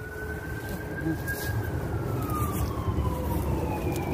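Emergency-vehicle siren wailing: one slow rise and fall in pitch, with a new rise starting near the end, over a steady low rumble.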